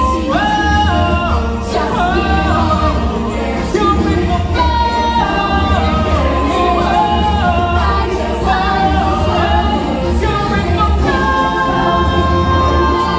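Stage-musical song: several voices singing together over music with a steady pulsing bass, ending on a long held note.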